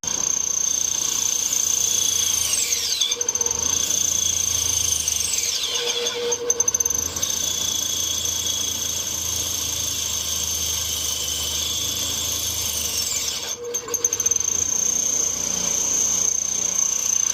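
Small 10-inch bandsaw running and cutting into brass, with a steady high whine over a low motor hum and three squeals that fall in pitch. The 1/4-horsepower motor is wildly underpowered for cutting the brass.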